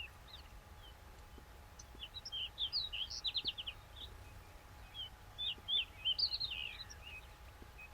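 Baya weavers chirping: quick high chirps in two busy runs a couple of seconds apart, over faint low background noise.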